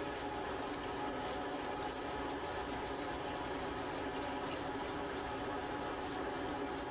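Distilled water pouring steadily into a large glass beaker, splashing as the beaker fills.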